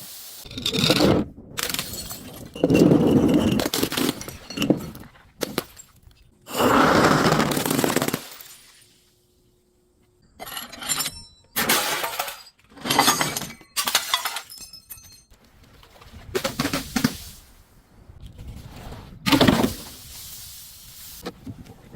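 Glass bottles and other objects being smashed and crushed: a series of separate crunching, shattering bursts of a second or two each, with a brief near-silent pause about nine seconds in.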